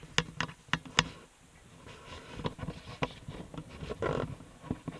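A cable tie being fastened around a cable: a quick run of sharp clicks in the first second, then scattered clicks and a short rasp about four seconds in as the tie is pulled tight.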